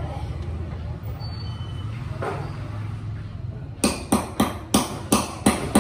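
Hand hammer striking a part on a block, sharp blows about three a second starting near four seconds in. Before the blows there is a low, steady rumble.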